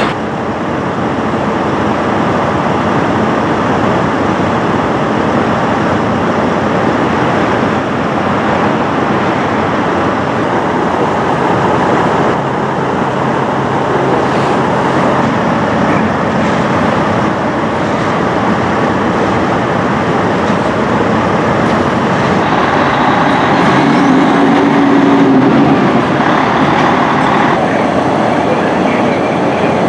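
Steady, loud rumble of heavy vehicle noise, with a brief low hum about 23 to 26 seconds in.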